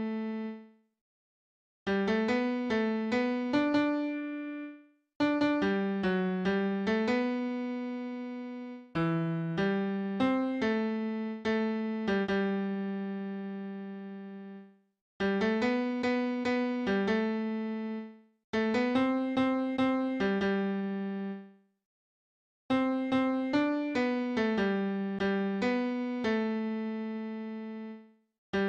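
Electronic piano sound playing a single choir bass part note by note, in short phrases separated by abrupt complete silences. Each note is struck and then fades.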